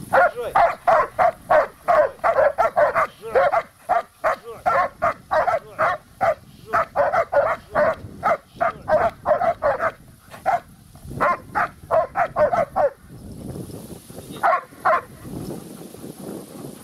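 German shepherd dogs barking rapidly and without a break, several barks a second. The barking stops about 13 seconds in, and two last barks follow a moment later.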